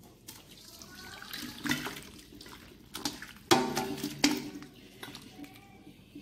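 Pressure-cooked chicken pieces and broth poured from a pressure cooker into a steel karahi, the liquid splashing and pouring unevenly, with a couple of sharper knocks a little past the middle.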